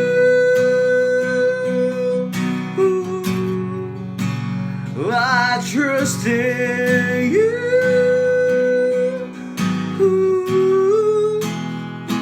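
Acoustic guitar strumming under long, wordless sung notes, each sliding up into a held pitch.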